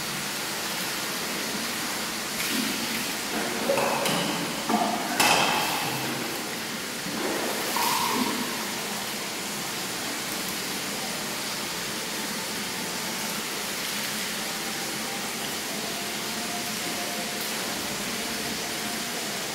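A metal bath bowl clanks and rings a few times between about two and eight seconds in, with water splashing, over a steady hiss.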